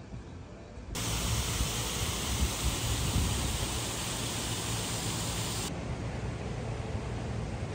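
A steady rush of falling water from a water feature, starting suddenly about a second in. A little before the end it changes to a slightly duller, softer hiss.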